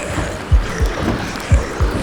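A heartbeat thumping in deep lub-dub pairs, about one beat a second, over a steady hiss.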